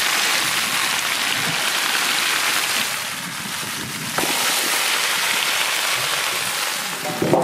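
Mixed vegetables sizzling as they fry in oil in a large wok: a steady hiss that drops a little around the middle and comes back just after, with a short louder sound at the very end.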